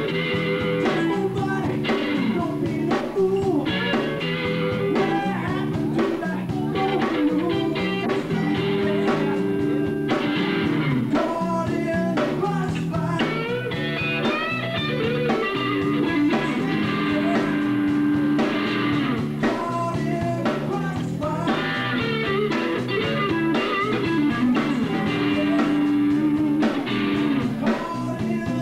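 A live blues band playing, with electric guitar and bass guitar, and a sung lead vocal.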